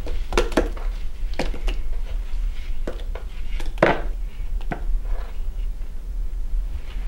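Small candy pieces being tipped and shaken out of a small plastic bowl into a large plastic mixing bowl: a dozen or so irregular taps and knocks, the loudest about four seconds in, over a steady low hum.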